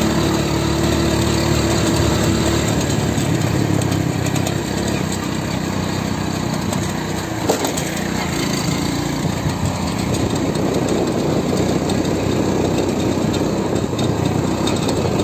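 Motorcycle engine running steadily while riding, with one brief sharp knock about halfway through.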